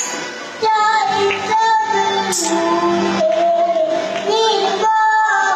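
A young child singing a melodic song over instrumental backing music, coming back in after a short break about half a second in.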